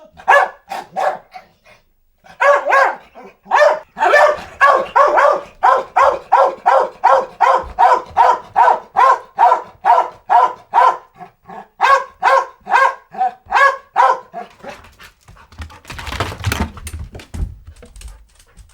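A dog barking over and over, about two to three barks a second, in a long run that stops about fifteen seconds in. Near the end comes a rougher, noisy sound with a low rumble, lasting about two seconds.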